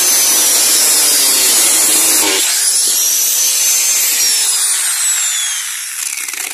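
Angle grinder with a cutting disc running through the steel of an old sugarcane machete blade. The motor whine sags under load, breaks off sharply a little over two seconds in, picks back up as the disc comes free, then falls steadily in pitch as the grinder spins down.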